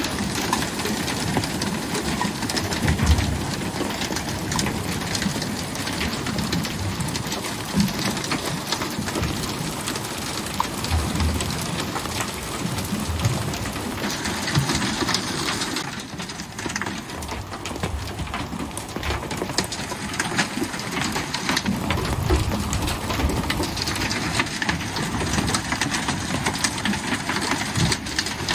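Hail and rain falling hard on the sea and the boat's metal deck: a dense hiss full of small ticking impacts. Gusts of wind hit the microphone now and then.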